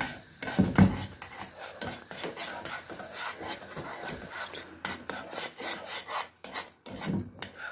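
A spoon scraping and stirring round a metal saucepan through a thick, gel-like hibiscus and cornstarch mixture as it thickens on the heat, with a louder knock of the spoon against the pan just under a second in.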